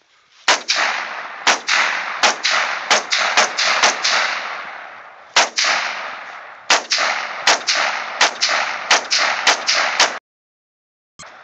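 AR-15 semi-automatic rifle fired in rapid strings, roughly twenty shots in quick pairs and triplets with a couple of short pauses, each shot followed by a long echoing tail.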